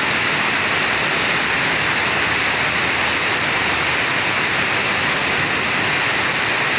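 Heavy rain pouring down onto paving and asphalt: a steady, even hiss.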